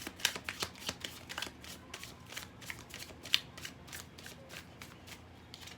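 A deck of tarot cards being shuffled by hand: a quick, irregular run of card clicks and slaps.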